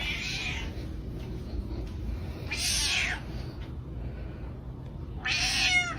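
Domestic cat meowing: three meows a couple of seconds apart, over a steady low background rumble.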